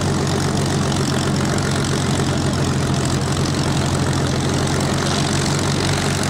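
Supermarine Spitfire Mk XVI's Packard-built Merlin V12 engine idling steadily on the ground, propeller turning.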